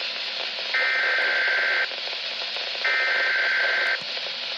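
Weather radio SAME digital header: two bursts of screeching data tones, each about a second long and a second apart, over steady radio hiss. These are the coded bursts that set off alert-equipped weather radios at the start of the weekly test.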